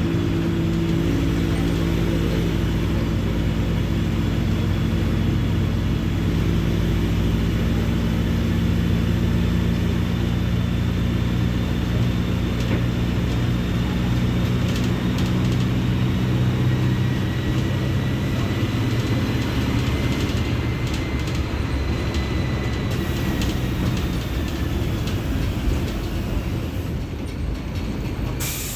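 Diesel engine of a Mercedes-Benz OF-1721 Bluetec 5 bus running steadily with a low rumble, joined by a faint high whine partway through. The engine note weakens in the last few seconds.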